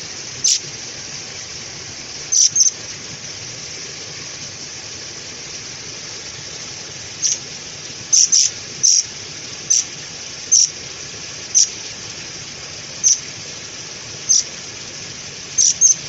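Caged murai kopi songbird giving short, sharp, high-pitched chirps, one at a time or in quick pairs, at irregular gaps of about a second.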